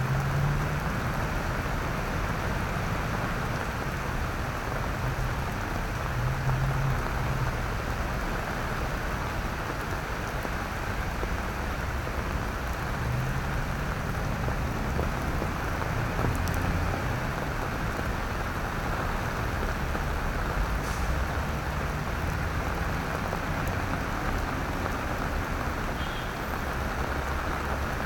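Steady rain falling on wet paving, an even hiss, with a low rumble underneath that swells now and then.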